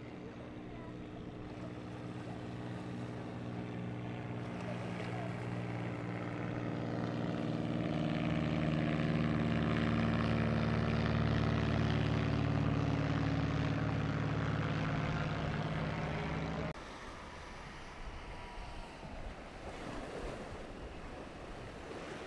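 Motorboat engines running steadily as boats pass close by, the hum growing louder toward the middle. It cuts off suddenly about seventeen seconds in, leaving wind and surf.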